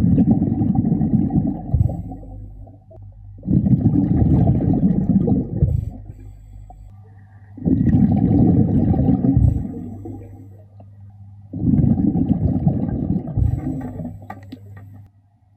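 Diver's exhaled breath bubbling out of a scuba regulator underwater, a low rumbling gurgle in bursts of two to three seconds, repeating about every four seconds with each breath.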